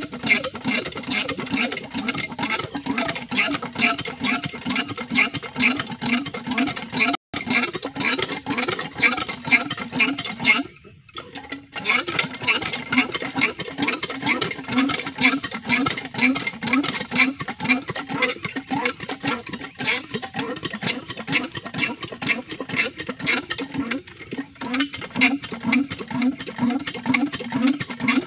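Small single-cylinder diesel engine of about 12 hp, belted to a farm water pump, running with a fast, steady beat. The sound cuts out for an instant about seven seconds in and dips briefly near eleven seconds before the engine carries on as before.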